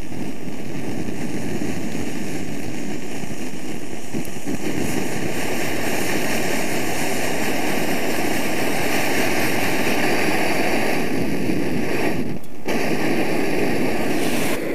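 Multi-fuel backpacking stove burner running under pressure with a steady roar, with one brief break about twelve seconds in.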